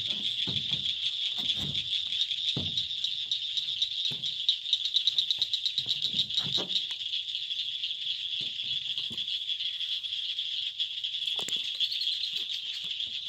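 A steady, high-pitched chorus of trilling insects, rapidly pulsing, which is the loudest sound throughout. Beneath it are scattered dull thumps of boots stepping on wooden dock boards.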